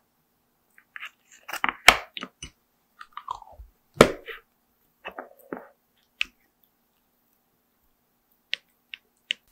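A plastic spoon scooping soft canned kitten mousse from a tin and working it into a ceramic bowl of milk formula: irregular wet squelching and scraping, then a few sharp taps near the end.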